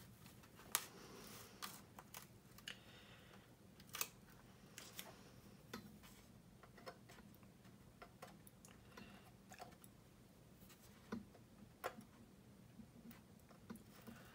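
Faint, irregular small clicks and taps of metal tweezers against a plastic scale-model airframe as masking tape is picked off it.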